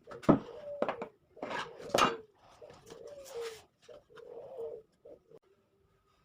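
Several sharp knocks and taps from work on the wooden pieces, with a dove cooing in low, wavering calls in the background.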